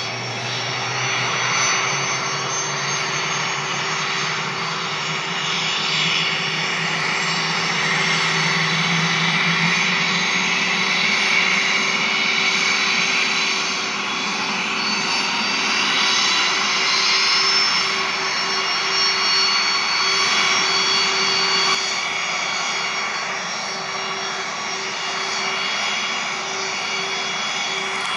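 Cessna Citation CJ2's Williams FJ44 turbofan engines running on the ground just after start, a steady high-pitched whine whose pitch creeps upward over the first ten seconds or so as the engines settle to idle.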